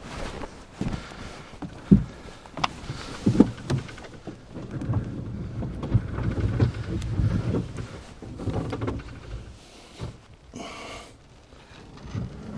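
Knocks, bumps and low rumbling of a rowboat being handled and boarded, with a short hissing rush about three-quarters of the way through.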